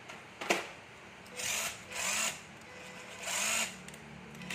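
Cordless battery power tool run in three short bursts, each about half a second, with its tip pressed against a wooden test block, its motor humming between them. A sharp click comes about half a second in, before the first burst.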